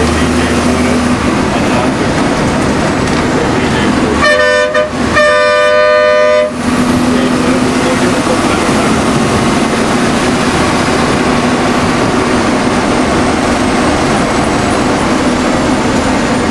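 A vehicle horn honks twice about four seconds in, a short toot and then a longer blast, over the steady road and engine noise of a moving vehicle heard from inside.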